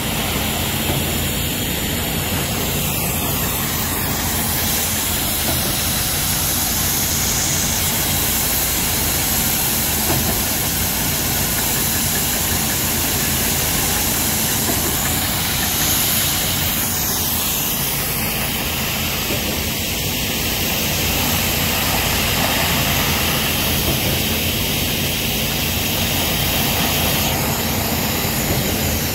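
Shotcrete machine running steadily: a low motor hum under a constant hiss of compressed air spraying concrete from the nozzle.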